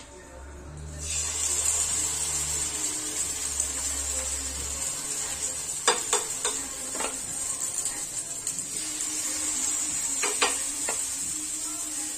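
Cabbage and egg torta batter sizzling in hot oil in a multi-cup pancake pan, the sizzle starting about a second in as the mixture is spooned in. A metal spoon clicks and scrapes against the pan several times, in two clusters.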